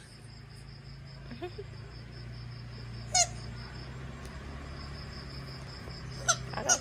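A green rubber squeaky ball squeaking in short high-pitched squeaks as a Shiba Inu mouths it and a hand squeezes it: once about three seconds in and twice more near the end.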